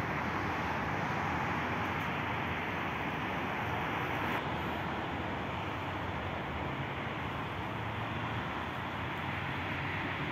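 Steady outdoor traffic noise: an even, unbroken noise with no distinct tones or knocks.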